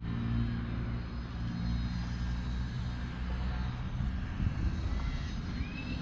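Distant engine droning steadily with a low hum, over a faint outdoor hiss; a thin high whistle sets in near the end.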